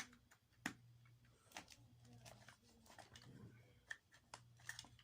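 Faint, scattered clicks and taps of an electronic throttle body's cover being worked loose and pried open by hand, over a steady low hum.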